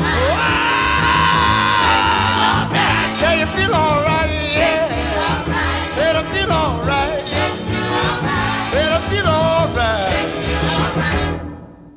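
Recorded oldies pop/soul music with a wavering lead melody, fading out near the end as the track ends.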